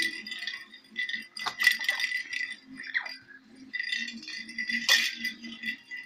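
A parrot's bell toy rattling and jingling in repeated bursts of clicks over a steady ringing bell tone, as a blue-fronted amazon plays with it.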